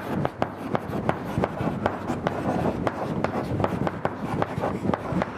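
Chalk writing on a blackboard: a quick, irregular run of sharp taps with scratching between them as the words are written out by hand.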